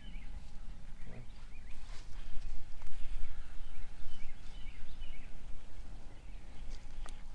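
Puffs of air blown through a pocket bellows onto smouldering charred cloth in a tinder bundle, coaxing the ember into flame, loudest about two to three and a half seconds in. Birds chirp now and then.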